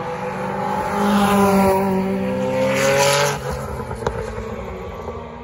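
Historic touring car racing engines at full throttle, rising in pitch as they accelerate past, then dropping off sharply about three and a half seconds in and fading away. A short sharp click about four seconds in.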